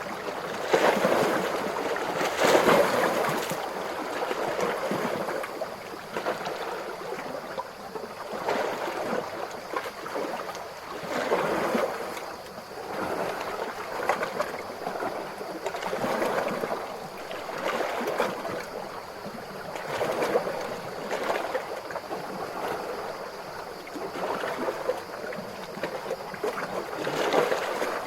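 Calm ocean waves gently lapping and splashing at the water's edge, swelling and easing in an uneven rhythm every couple of seconds.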